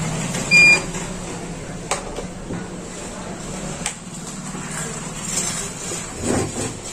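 Inverter buzzer giving one short, sharp electronic beep about half a second in, over a steady low hum, with a few faint clicks and some handling noise afterwards.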